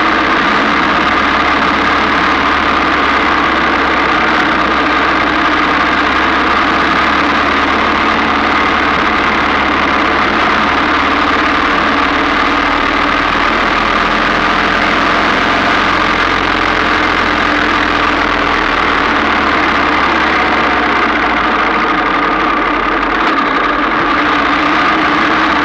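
Ariel VH500 Red Hunter's single-cylinder four-stroke engine running steadily as the motorcycle rides along.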